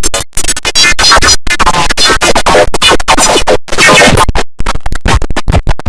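The IBM OS/2 Warp 3 shutdown sound, heavily distorted and run through stacked audio effects. It is chopped into loud stuttering fragments with pitch sweeps that sound like record scratching, broken by sudden short dropouts, including one about a second and a half in and one about three and a half seconds in.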